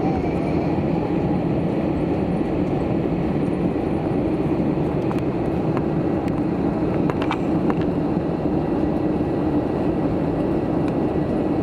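Steady rumble of cabin noise inside an Airbus A320 airliner on the ground after landing, with a few faint clicks about five to seven seconds in.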